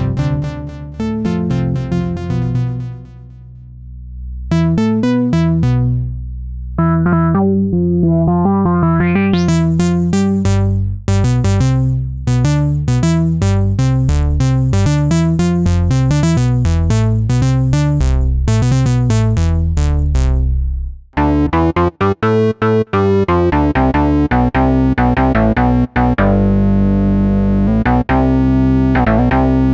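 Wavetable synthesizer patches from the UVI WaveRunner Orange sample library playing a run of pitched notes in a sequenced pattern. About 21 seconds in the sound changes to another patch that cuts in and out rapidly before settling into a steady pattern.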